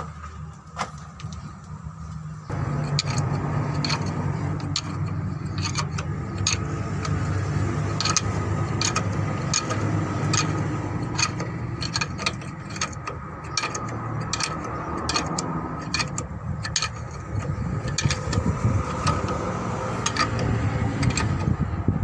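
An engine running steadily, louder from about two and a half seconds in, with frequent sharp metallic clinks and knocks over it.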